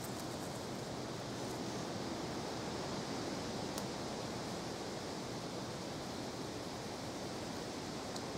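Steady outdoor ambience: an even hiss with no distinct events, and a faint tick about four seconds in.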